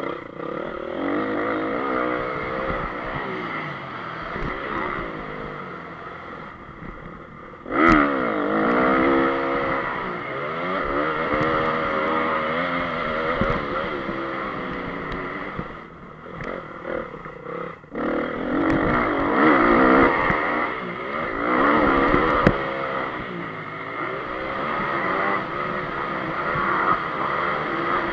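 2014 Honda CRF250 four-stroke single-cylinder motocross engine at race pace, revving up and down as the throttle is opened and shut through the bends. The engine surges loudly about eight seconds in and drops off briefly twice near the middle.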